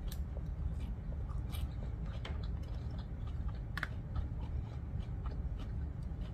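Close-up chewing of a mouthful of noodles, with scattered short, sharp clicks as a fork goes into a plastic takeout bowl; the sharpest click comes about four seconds in.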